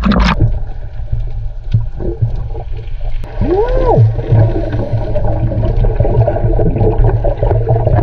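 Underwater noise picked up by the camera while diving: a steady low rumble of water and movement with scattered rustles, and one short tone that rises and falls about three and a half seconds in.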